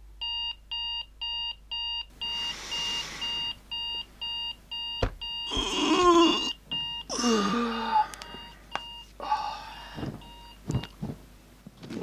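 Electronic alarm beeping in rapid, evenly spaced beeps, about two or three a second, stopping about eleven seconds in. Over it come rustling, a sharp knock and a person's voice.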